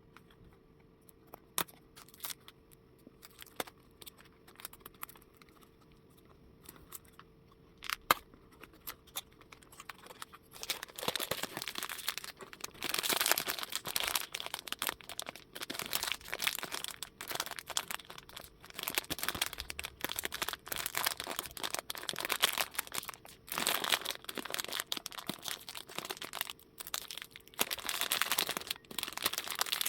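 Unboxing of a Sonny Angel blind-box figure. At first there are a few light clicks and taps as the small box is handled. From about ten seconds in, the packaging wrapper crinkles and tears open, on and off to the end.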